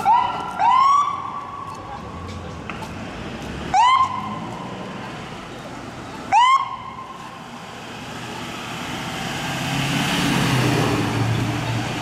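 Ambulance electronic siren giving four short rising whoops, two close together near the start and the others about three and six seconds in. Its engine and tyres then swell and fade as it drives past.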